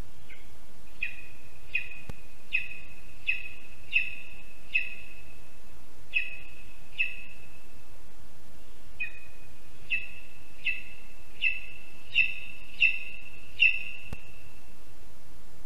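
Lesser spotted eagle giving two series of short, high calls, one to two a second, with a brief pause between the series; the second series grows louder toward the end.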